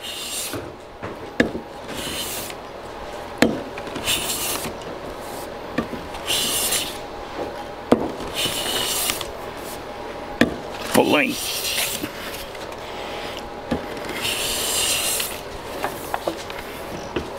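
Hand plane taking full-length shavings off a thin wooden veneer: about seven hissing strokes, roughly one every two seconds, with sharp knocks as the plane is lifted and set back down. It is flattening the sawn face of the veneer for a glue-up.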